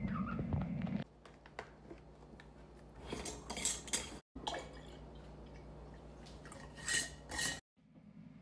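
After about a second of low muffled noise, glass and plastic containers clink and tap as pumped breast milk is emptied from a breast-pump container into a glass mason jar, with some trickling of liquid.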